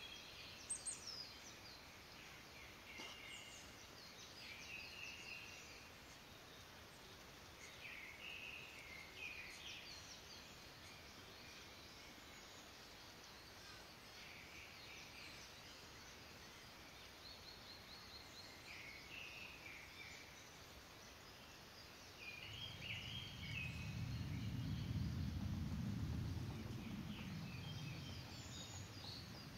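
Faint scattered chirps and short calls of small birds. About three-quarters of the way through, a low rumble swells in and becomes the loudest sound, then eases off.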